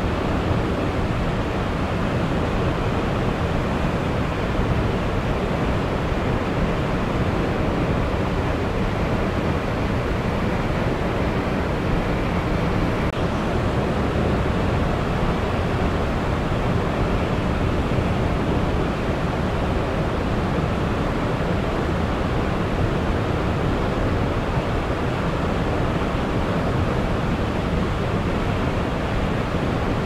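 A large waterfall's water falling and crashing without a break: a steady, dense rush, heaviest in the low range.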